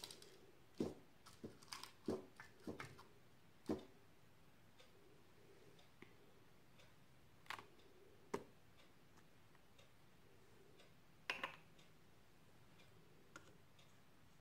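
Light taps and clicks of a small plastic bottle cap being dabbed on a foil-covered paint plate and pressed onto paper, several close together in the first few seconds and a few single ones later, with near silence between.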